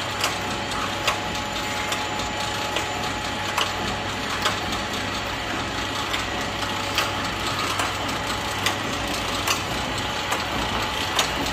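Flow wrap (pillow wrap) packing machine running empty: a steady mechanical hum with a short sharp click repeating evenly a little faster than once a second as the machine cycles.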